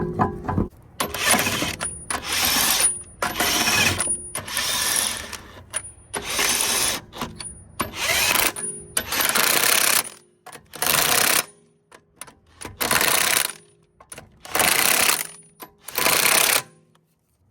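DeWalt DCF900 cordless high-torque impact wrench hammering a wheel's lug nuts tight, in about ten bursts of around a second each with short pauses between them.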